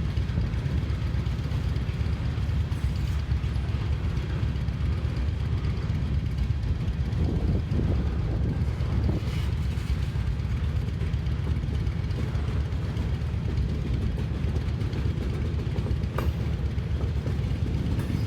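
Mixed freight train rolling past as it slows down: a steady low rumble from the cars, with a couple of faint clicks.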